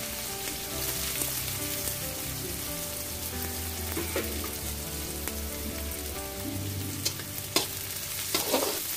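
Chopped onions sizzling as they fry in hot oil in a kadai, with a few short knocks in the second half as they are stirred.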